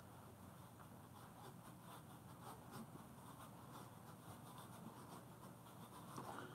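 Near silence: room tone with faint, light rustling.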